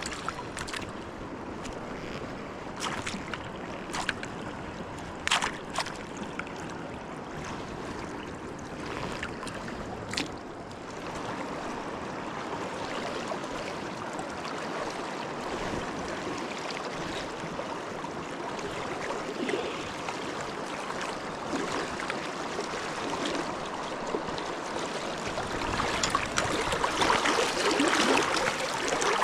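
River water rushing and splashing, with a few sharp clicks in the first ten seconds. The water grows louder and choppier near the end.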